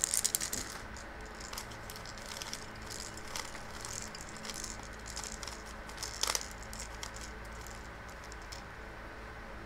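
Plastic wrap crinkling briefly as it comes off, then a MoYu Crazy Yileng puzzle cube being turned: soft, scattered clicking of its plastic layers, with one louder click about six seconds in.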